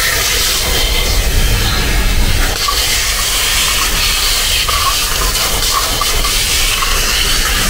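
Shop vacuum running steadily, its long nozzle sucking up metal drill shavings from the floor.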